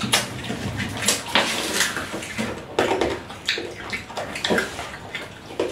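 Plastic candy wrappers crinkling and rustling as they are handled, in irregular crackly bursts.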